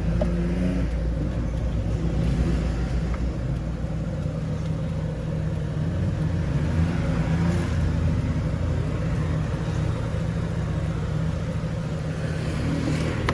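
Daewoo Gentra's 1.5-litre engine idling steadily with an even low hum.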